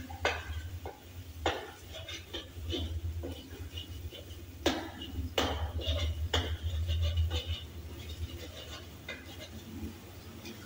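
Metal spatula scraping and knocking against a steel wok while stirring, with a few sharper clanks among lighter scrapes. A steady low hum runs underneath.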